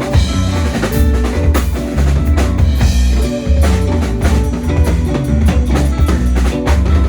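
Live rock band playing loud, with a drum kit hitting steady beats over a strong bass line.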